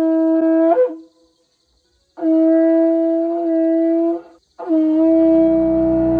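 A shofar blown in long, steady blasts: one ends about a second in, a second is held for about two seconds, and a third begins near the end as soft ambient music comes in underneath.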